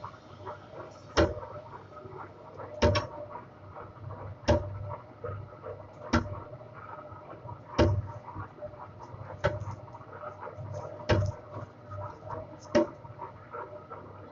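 Large DIP-500 lathe turning a big pipe: a steady running hum with a constant tone, and a sharp knock that repeats evenly about every 1.6 seconds.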